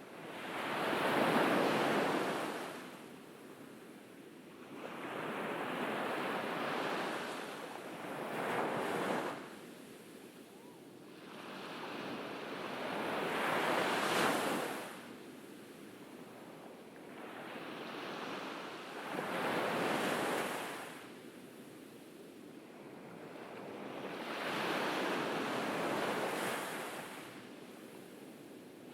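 Ocean waves breaking and washing up on a beach, the surf swelling and fading again about every five or six seconds.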